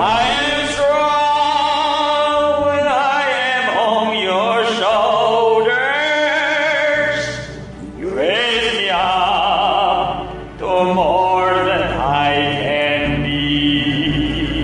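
A sung ballad: a voice in a full, operatic style holding long notes with wide vibrato over instrumental backing. The sound dips briefly twice, about eight and ten and a half seconds in.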